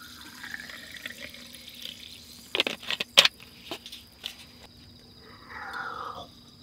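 Sparkling water being poured into a small soju glass, a quiet liquid sound. A few sharp clinks of glass come about halfway through, and a second short stretch of pouring or fizzing comes near the end.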